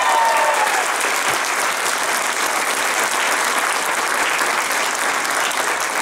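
Audience applauding steadily, with cheering voices fading out in the first second.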